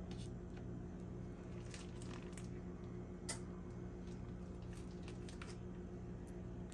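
Raw bacon strips being peeled from the pack and laid on a griddle: faint soft squishes and small clicks, one a little sharper about three seconds in, over a steady low hum.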